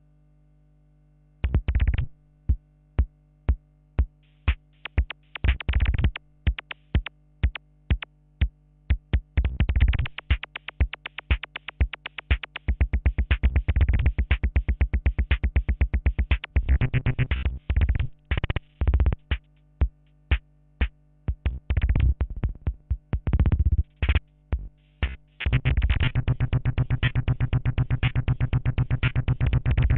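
Korg Kaossilator playing electronic drum-machine beats with synth sounds: after a second and a half of near silence, short punchy hits come about two a second, the pattern grows busier, and from about 25 seconds in it turns into a dense, fast, steady run of notes.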